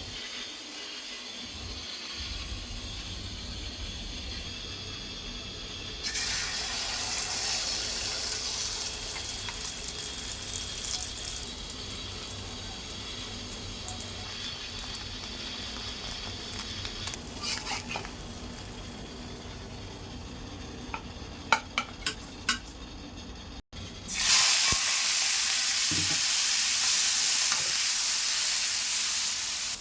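Food frying in hot oil in a pan, sizzling steadily and getting louder about six seconds in, with a few sharp clicks of a utensil against the pan. After a brief dropout, a much louder sizzle starts and runs on near the end.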